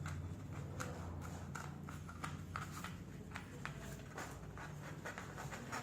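Scattered light clicks and taps from small objects being handled, over a steady low hum.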